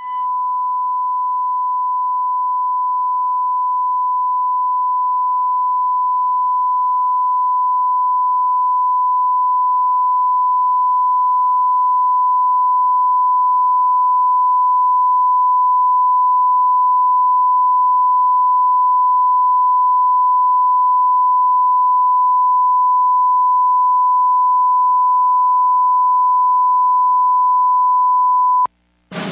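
A television station's test tone of one steady high pitch, sounding with the test pattern while the analog channel is off programming. It cuts off suddenly near the end.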